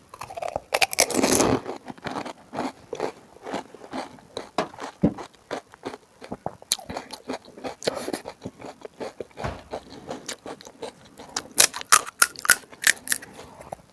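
Crisp pani puri (golgappa) shells being bitten and chewed. There is a loud crunch about a second in, steady wet chewing after it, and a run of sharp crunches near the end.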